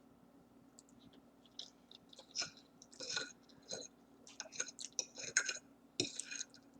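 A person chewing spaghetti, with irregular clicking mouth noises that start about a second and a half in and come thickest in the second half.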